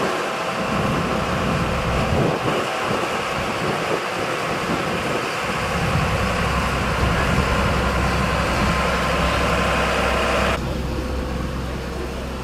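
Diesel engine of a Mercedes-Benz overhead-line works truck running at low speed as the truck creeps forward, with street noise. About ten seconds in the sound cuts to a quieter, steady low hum.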